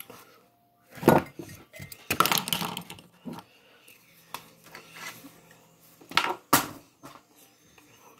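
Small hard makeup products clattering and knocking as they are handled and set down. There is a knock about a second in, a busy run of clicks a little after two seconds, and two sharp knocks about six seconds in.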